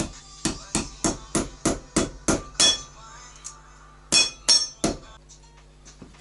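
Hammer blows, about three a second: a run of eight strikes, a pause of about a second and a half, then three more.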